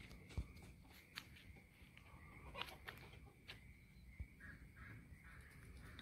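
Near silence outdoors: a faint steady high-pitched tone, a few soft clicks, and brief faint chirps about midway.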